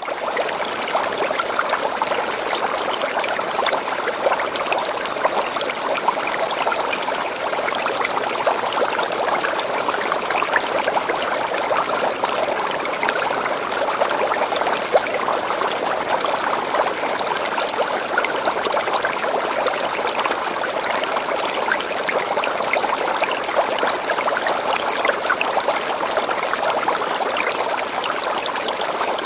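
Fish tank bubbles: a steady stream of small bubbles gurgling and popping in water, dense little pops at an even level throughout.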